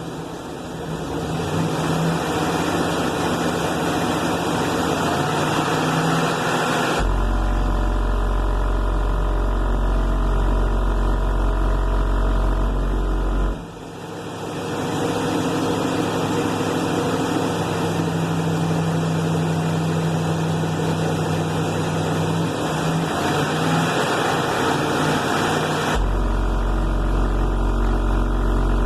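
Rockville Punisher subwoofer playing high-power bass burps on about 5,000 W RMS. Two long, very deep low tones, one about seven seconds in lasting some six seconds and another near the end, sound through a loud, overdriven, rattly wash of bass. A brief drop comes about halfway through.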